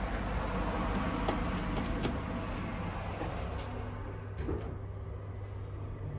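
Late-model Mitsubishi Elepet elevator in operation: a steady low rumble and hum with scattered clicks and knocks. The higher hiss dies away about four and a half seconds in.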